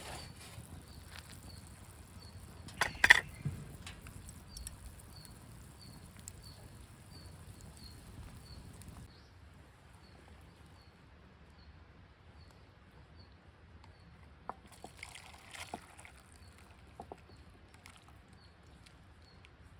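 Quiet outdoor sounds: a few sharp knocks and clicks, the loudest about three seconds in and another cluster near the end, under a faint high chirp repeating about twice a second. A high hiss stops abruptly about halfway through.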